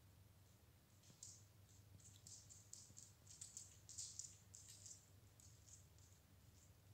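Near silence with a low steady hum, broken by faint, irregular light clicks and ticks, several a second, thickest from about one to five seconds in.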